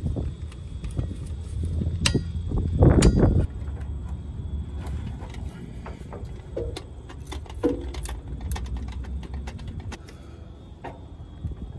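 Metal tool clinks and clicks as a wrench is worked on the bearing-cap bolts of a new Spicer U-joint on a truck driveshaft, with a louder handling noise about three seconds in, then a grease gun worked on the joint's grease fitting. A steady low rumble runs underneath.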